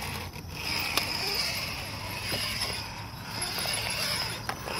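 1.9-scale Ultra4 Bomber RC rock crawler being driven, its electric motor and gear drivetrain whining and swelling and fading several times, with a sharp click about a second in.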